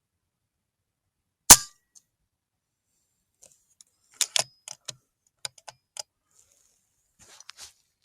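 A single sharp shot from an FX Impact .22 PCP air rifle about a second and a half in, followed from about four seconds in by a run of short sharp clicks.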